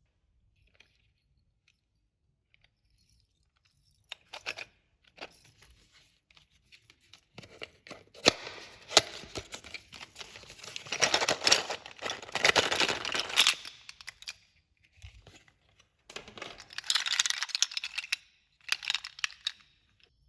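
Clear slime being handled, squeezed and stretched, giving crackling and popping in irregular bouts. The sound is loudest through the middle, with a shorter bout near the end.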